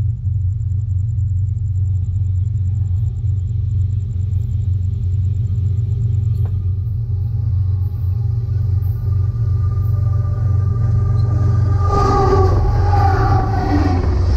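Union Pacific diesel freight train approaching along the track: a steady low rumble that grows louder and rougher about twelve seconds in, as the locomotive reaches and rolls directly over the camera.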